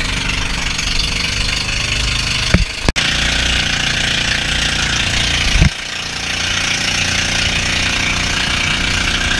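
Outrigger pump boat's engine running steadily under way, with wind and spray noise over it. Two sharp thumps, at about two and a half and five and a half seconds in.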